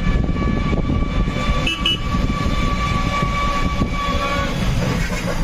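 Rumble of a moving road vehicle, with a steady high-pitched whine that stops about four seconds in.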